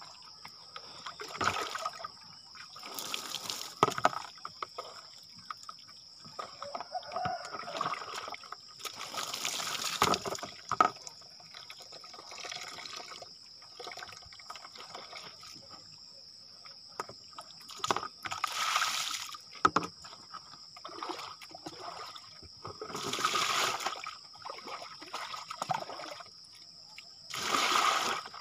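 Water splashing as a person bathes with water from a trickling spout, poured and splashed over the body in surges of a second or two, about six times, with a quieter trickle between.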